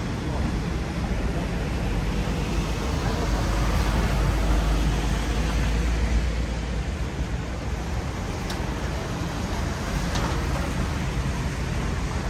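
City street ambience: a steady low rumble of traffic with general urban noise, swelling for a few seconds in the middle, and a couple of faint sharp ticks later on.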